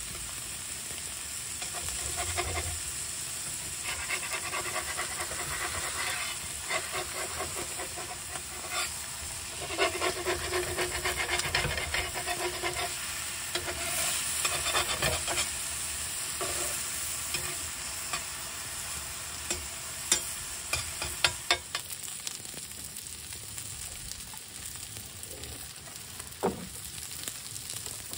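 Burger patties and sliced onions sizzling on a cast iron griddle, with a metal spatula scraping and stirring the onions across the pan in bouts through the first half. A few sharp clacks of the spatula come about twenty seconds in.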